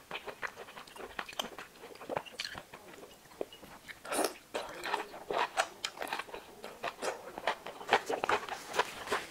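Close-miked eating: a long slurp of noodles about four seconds in, with wet chewing and lip smacks of noodles and steamed scallop before and after it.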